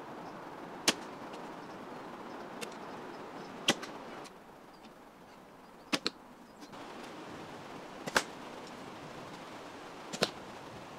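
Arrows shot from a wooden bow: about five sharp, brief snaps a couple of seconds apart, over a steady woodland hiss.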